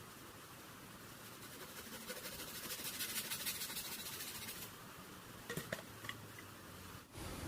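Forest insects buzzing: a fast, even, high-pitched pulsing that swells about a second in and stops abruptly a few seconds later, followed by a few sharp clicks.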